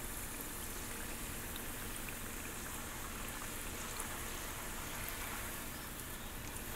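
Fry bread dough deep-frying in hot oil in a cast-iron skillet: a steady sizzle with small scattered pops.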